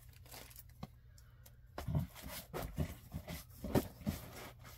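Comic books in plastic bags being handled and shuffled, giving a string of irregular crinkles and light knocks that start about two seconds in, over a steady low room hum.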